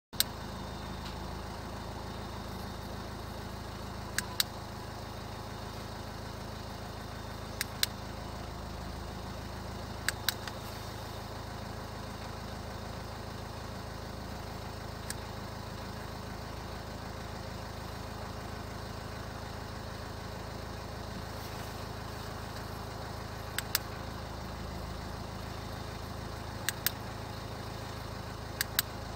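Car engine idling steadily, with several pairs of sharp clicks a few seconds apart.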